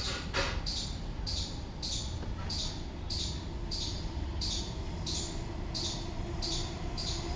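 Short high chirps repeating evenly, about two a second, over a steady low rumble.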